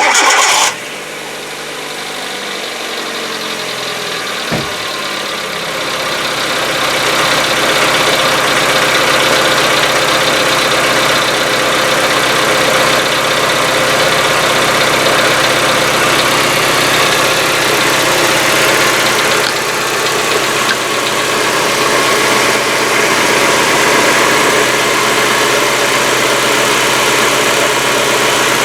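Hyundai Getz engine cold-started: a short burst of cranking as it catches right at the start, then a cold idle with light tapping from the hydraulic valve lifters that dies away within ten to fifteen seconds, after which it runs evenly. The lifters are lubricated with fresh oil dosed with Liqui Moly hydraulic-lifter additive.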